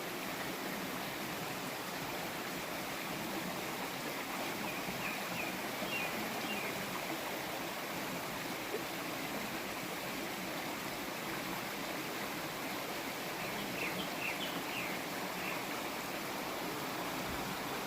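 Mountain stream flowing steadily over rocks, with a grey-backed thrush singing two short phrases of quick high notes, about five seconds in and again near fourteen seconds.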